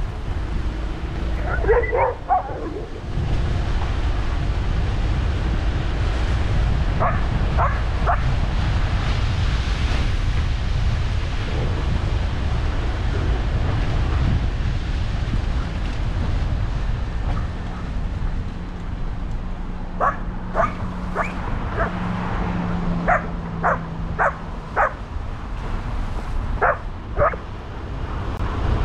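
A dog barking in short, sharp barks: a few near the start, three together a few seconds later, then a quick run of about a dozen near the end. Throughout there is a steady low rumble of wind on the microphone.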